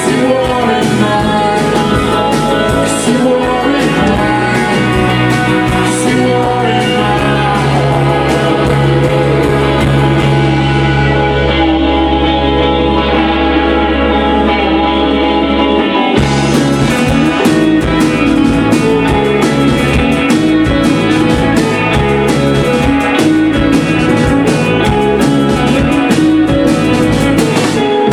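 Rock band playing live with electric guitar, bass and drums. In the middle the drums drop out for several seconds under a held low bass note, then come crashing back in.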